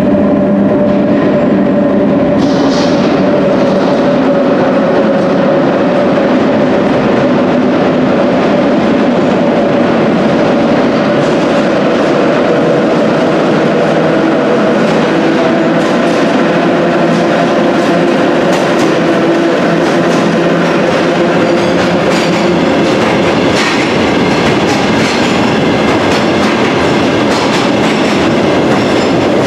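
London Underground battery-electric locomotives hauling a train of loaded ballast wagons through a tube station platform: a steady electric drive hum over the running rumble of wheels on rail. Sharp wheel clicks over rail joints appear about a third of the way in and grow denser in the second half as the locomotives and wagons draw level and pass.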